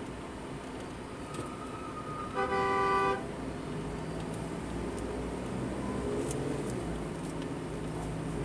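A vehicle horn sounds once, a single blast of under a second about two and a half seconds in. Under it is the steady hum of engines and street traffic.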